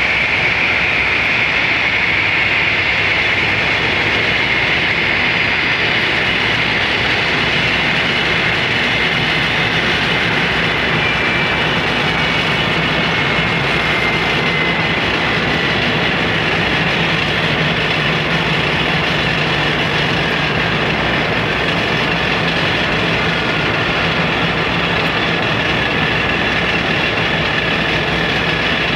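Steady aircraft turbine noise: a high whine over a broad rumble, with one thin tone gliding slowly down in pitch about halfway through.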